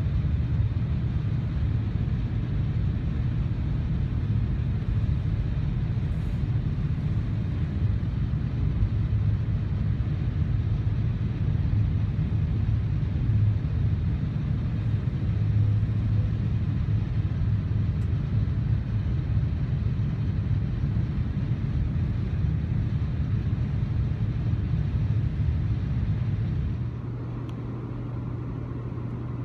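Low, steady rumble of a CN intermodal freight train passing close alongside on the adjacent track, its GE diesel locomotives and then a long string of double-stacked container cars going by, mixed with the passenger train's own running noise. Near the end it drops to a quieter, steady low hum.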